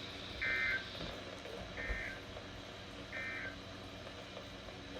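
Three short bursts of warbling digital data tones, about a second and a half apart: the SAME end-of-message (EOM) code of a NOAA Weather Radio broadcast, closing the required weekly test.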